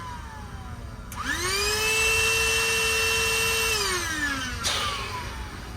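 Small electric air pump switched on about a second in, spinning up to a steady whine, then switched off and winding down with a falling pitch, followed by a click. It is run in short bursts and its motor is getting hot.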